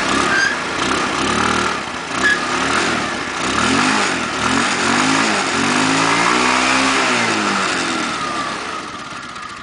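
Small scooter engine running and being revved, its pitch rising and falling several times, then dying away near the end.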